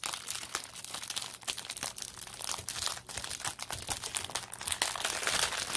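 Paper crinkling as it is handled: a steady run of small, irregular crackles.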